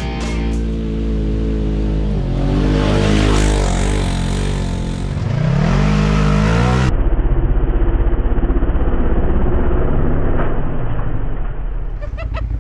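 Side-by-side UTV engine running, revving up with a rising pitch about five to six seconds in. It then turns abruptly duller and runs steadily with an even engine pulse.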